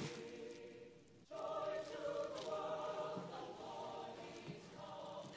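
A choir singing slow music in long held chords. The sound fades away about a second in, then a new phrase starts.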